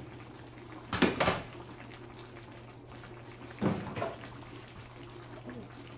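Metal baking sheet being pulled out of an oven, knocking against the oven rack and door: a quick double knock about a second in and another knock near four seconds, over a steady low hum.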